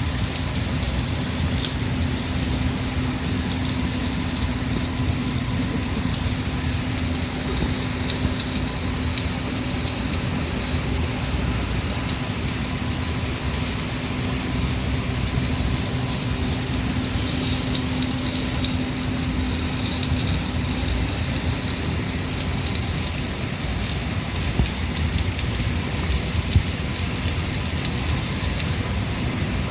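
Electric arc welding: a steady crackling, frying hiss from the arc, with a faint low hum underneath for most of it.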